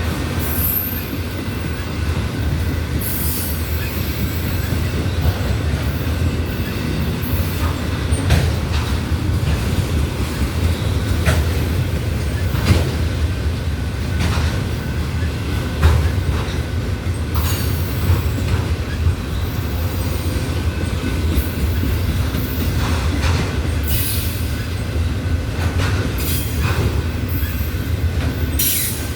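Loaded autorack freight cars rolling past: a steady low rumble of wheels on rail, with frequent short clanks and brief high-pitched wheel squeals.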